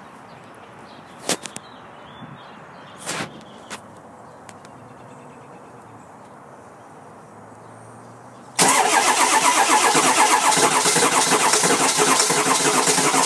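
A diesel engine being cranked by its starter on a cold-start attempt, beginning suddenly about two-thirds of the way in and holding steady and loud. Before that there are only a few faint clicks over a low background.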